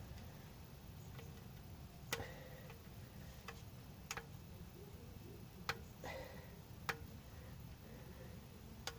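Faint, irregular sharp clicks and taps, about seven in all, some with a short ring. They come from fingers working at the metal drain-plug area of the oil pan, where the old crush washer is stuck after an oil drain.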